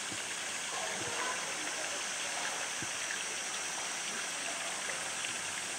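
Steady rush of running water in a polar bear's pool, with faint light splashing as the bear swims pushing a floating plastic tank.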